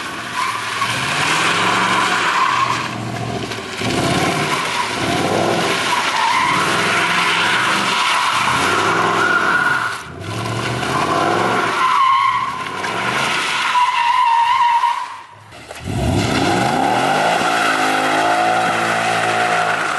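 2012 Ford Mustang GT's 5.0-litre V8 revving up and down over and over while the rear tyres squeal as the car slides in circles on wet pavement. The revs fall away briefly about fifteen seconds in, then climb hard again.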